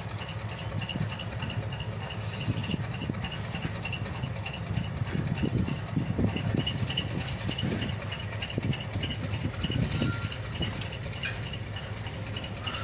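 Low steady hum of an idling car heard from inside the cabin, with irregular low knocks through the middle and a faint high chirp repeating about twice a second.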